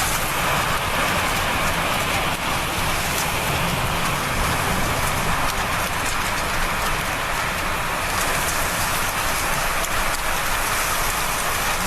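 Heavy rain pouring down steadily in a dense, even hiss, with a low rumble underneath.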